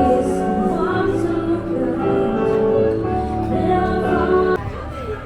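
Music with singing, which cuts off abruptly about four and a half seconds in.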